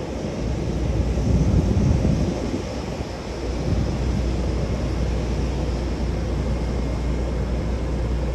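Wind buffeting the microphone in gusts over a steady low rumble, the gusts strongest in the first three seconds.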